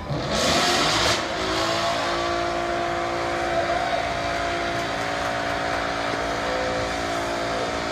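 2015 Ford Mustang's 5.0 L V8 doing a line-lock burnout, front brakes locked while the rear tyres spin. A sudden loud burst of revving and tyre noise comes about half a second in. The engine then holds at steady high revs over the noise of the spinning tyres.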